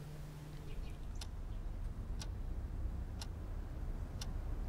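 Mantel clock ticking evenly, about once a second, four ticks, over a low steady hum.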